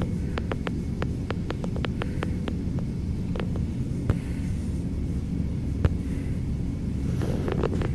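Steady low rumble of an idling vehicle engine, with a quick run of light clicks in the first few seconds and a few single clicks later.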